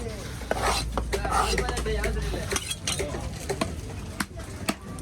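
Knife chopping and scraping through a fish on a cutting board: a handful of sharp knocks at uneven intervals over a rasping scrape.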